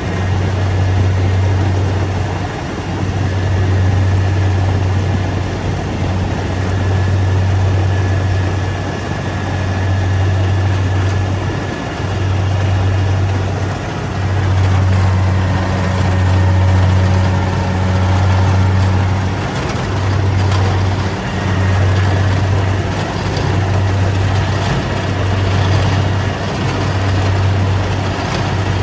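Rice combine harvester running: a loud, low engine drone over the clatter and rush of the machinery, swelling and dipping every couple of seconds.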